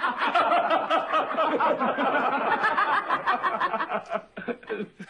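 Hearty laughter, a quick run of chuckling that dies away near the end.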